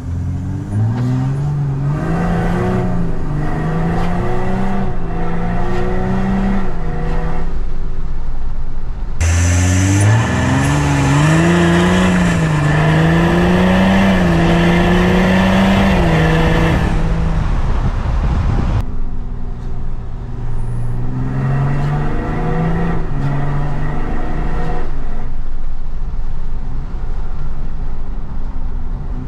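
Volkswagen Amarok 3.0 V6 turbodiesel accelerating with its exhaust cutout open. The exhaust note climbs in pitch and falls back several times as it shifts up. A loud rush of wind and road noise runs over it for several seconds in the middle.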